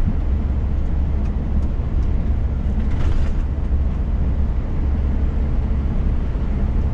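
Steady in-cab drone of a Scania S500 truck cruising on the highway: a deep engine hum with road and tyre noise over it, and a brief soft hiss about three seconds in.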